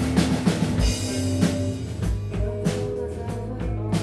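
Live rock band playing: electric guitars over a drum kit beat, with repeated drum and cymbal strikes.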